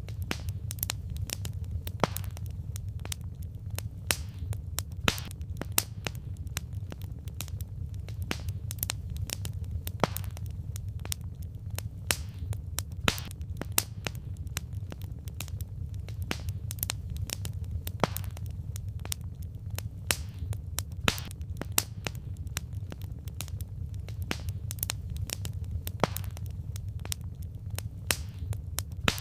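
Firewood burning in a campfire, crackling with many irregular sharp pops and snaps over a steady low rumble.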